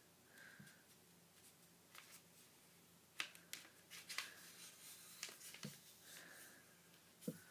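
A sheet of paper being handled and creased by hand: faint rustling, then a run of sharp crackles and clicks from about three seconds in as the fold is pressed flat.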